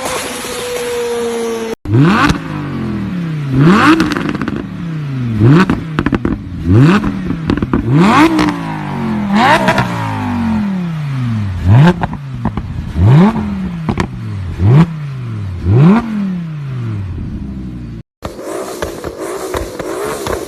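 Car engine blipped hard about ten times, each rev rising quickly and dying away slowly, roughly one every one and a half seconds, with sharp pops at the top of the revs.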